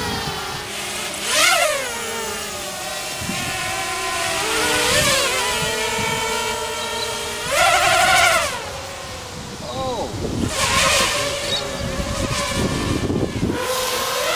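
Small racing quadcopter's four brushless motors (2204 2300KV on a 4S lipo) and propellers whining in flight, the pitch climbing and dropping again and again as the throttle is worked, with sharp climbs about one and a half and eight seconds in.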